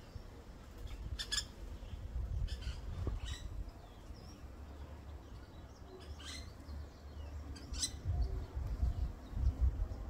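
Ground woodpecker (Geocolaptes olivaceus) calling: about five or six short, sharp, high calls at irregular intervals, over a low rumble.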